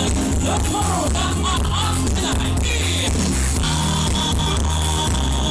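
Live pop concert music over a PA system: a male singer singing into a microphone over a loud backing track with a heavy, steady bass beat.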